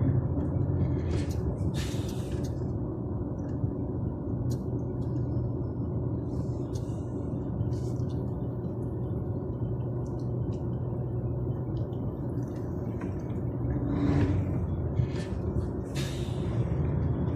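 DAF truck's diesel engine running while driving, heard from inside the cab as a steady low rumble. A few short bursts of noise come about two seconds in and twice near the end.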